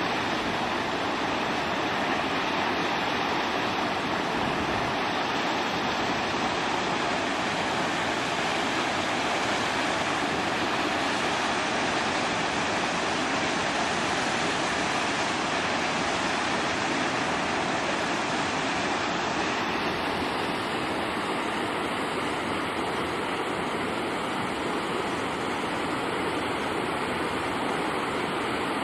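Steady rushing noise of running water, even and unbroken, with no animal calls standing out.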